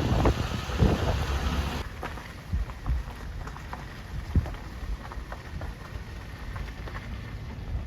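Storm wind rumbling on the microphone with rain falling, scattered short taps through it; the sound drops a little and changes abruptly about two seconds in.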